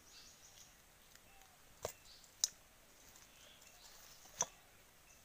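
Roasted brinjals being peeled by hand over a stainless steel bowl: quiet handling with three sharp clicks, the loudest about two and a half seconds in.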